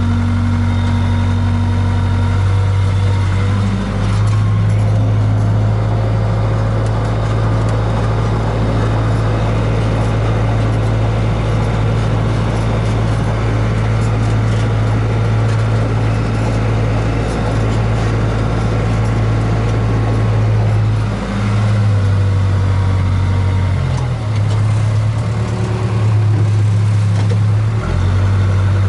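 Case 580K backhoe's four-cylinder diesel engine running steadily as the loader works snow, heard from inside the cab, its pitch shifting a few times as the operator changes throttle and load.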